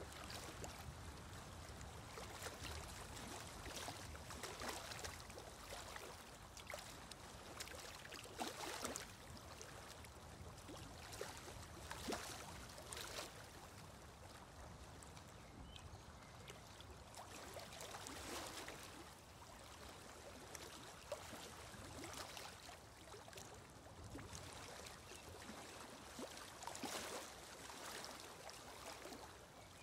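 Faint running water, trickling and splashing unevenly throughout: a quiet water ambience behind a silent meditation pause.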